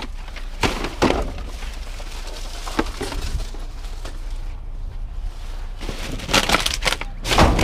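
Trash being rummaged through inside a dumpster: plastic bags rustling and objects knocking and clattering in a few scattered hits, coming thick and fast near the end.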